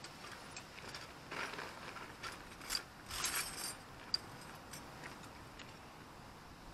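Metal hand tools clinking and rattling in a tool bag as it is rummaged through: irregular clicks and short rattles, with one sharper click about four seconds in.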